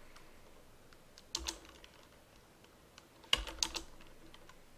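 Computer keyboard keystrokes: one or two about a second and a half in, then a quick run of several keys a little after three seconds, as a short word and Enter are typed at a terminal prompt.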